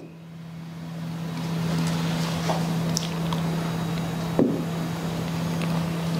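Steady low hum with an even whirring noise, swelling over the first two seconds and then holding steady. A few faint clicks, the sharpest about four and a half seconds in.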